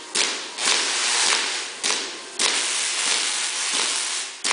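High-voltage spark discharges from indoor lightning machines: a series of sharp cracks, each running on into a loud crackling hiss for up to a second or so, as the arcs strike again and again.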